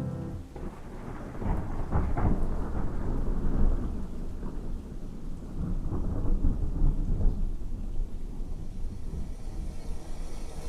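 Rain falling, with a low, uneven rumble underneath.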